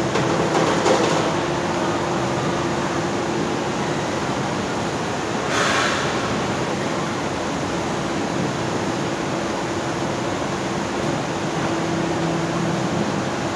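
Steady industrial machinery drone with a constant hum, from a tannery's overhead hide-drying conveyor line and its plant. A brief louder hiss rises about six seconds in.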